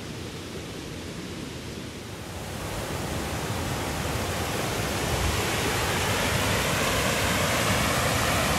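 A rocky mountain stream rushing down small waterfalls: a steady rush of water that grows louder about two seconds in.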